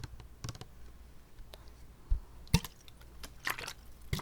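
Close-miked wet mouth clicks and small taps, scattered and irregular, with two low thumps about two seconds in.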